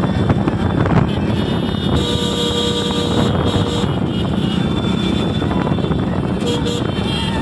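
A pack of motorcycles riding together, their engines making a steady, loud, mixed drone.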